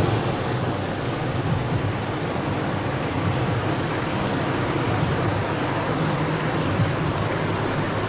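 Waterfall and cascade pouring into a rock pool: a steady, even rushing of water with a low rumble underneath.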